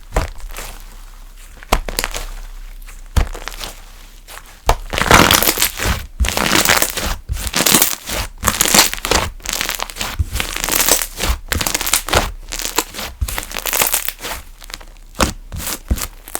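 Maple butter bread slime squeezed and pressed by hand, making crinkly crackling sounds. A few separate pops come first, then from about five seconds in there is a dense run of rapid crackles.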